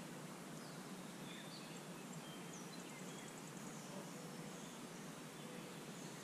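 Faint outdoor ambience: a steady low hiss with a few faint, high bird chirps and one short high trill about two and a half seconds in.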